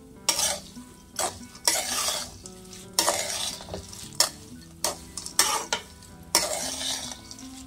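Metal spatula scraping through pumpkin, sunflower and watermelon seeds in a kadai as they roast in a little ghee with salt, the seeds rattling against the pan. The strokes come in uneven bursts, roughly one or two a second.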